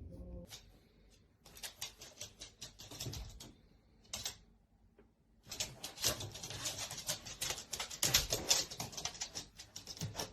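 Irregular runs of rapid crackling, scratching clicks, sparse in the first half and dense through the second half, like something rustling or scratching on a surface.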